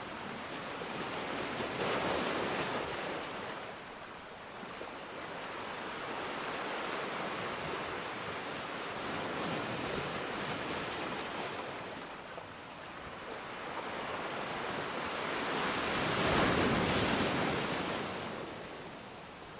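Sea waves washing onto the shore: a steady rush of surf that swells and fades as each wave breaks, three times, the loudest near the end.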